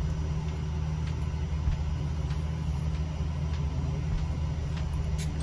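Air conditioner running with a steady low hum.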